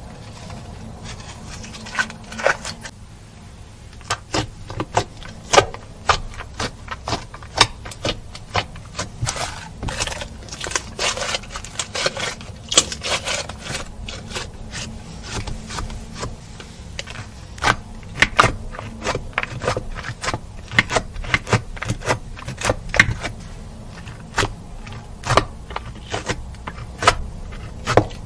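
Slime being mixed and kneaded by hand, giving off many irregular sticky clicks and pops, over a steady low hum.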